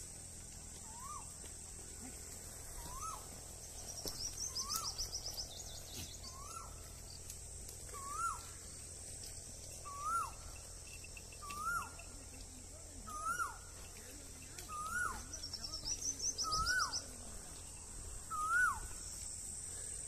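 Asian koel calling its repeated rising 'ko-el', about one call every one and a half seconds, each a little louder and higher than the last. A steady high insect hiss runs underneath, and another bird gives a short rapid trill twice.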